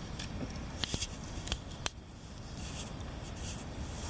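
Four sharp clicks within about a second, near the start, over a steady low rumble.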